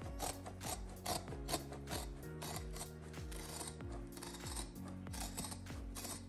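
Scissors snipping through the woven backing of a carpet stair runner, a quick run of short crunching cuts. Background music with a steady beat plays underneath.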